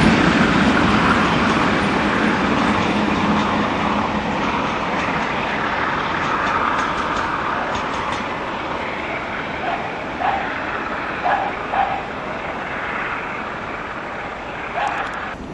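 Rail noise and rumble of a Blue Pullman train hauled by a Class 47 diesel locomotive passing and drawing away, fading steadily. A few short high calls sound about two-thirds of the way in and again near the end.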